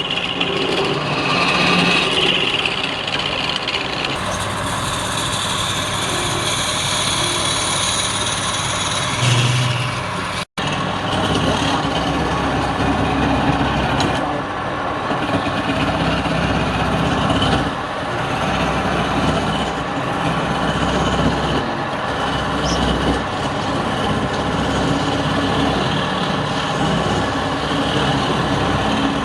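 Wood lathe motor running steadily while a turning tool cuts the spinning wood. The sound drops out for an instant at an edit about ten seconds in, then carries on.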